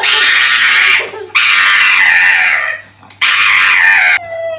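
Three loud, shrill screams, each about a second long with short breaks between them. Near the end a steady high howl from a dog begins.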